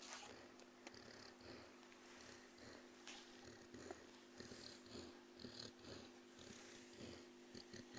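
Faint, quick, rhythmic breathing of a sick German shepherd puppy, two or three breaths a second, in a puppy that has a cough.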